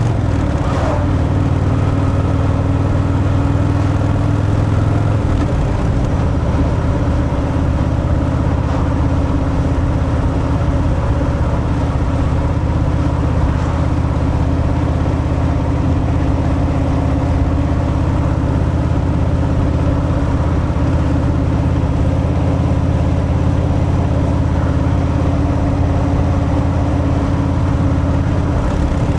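Harley-Davidson Fat Boy's Milwaukee-Eight 114 V-twin engine through its stock exhaust, running steadily while the bike is ridden. Its note shifts about five seconds in and then holds.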